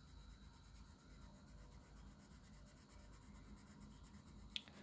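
Faint scratching of a colour pencil shading over a swatch on sketch paper, with a small click near the end.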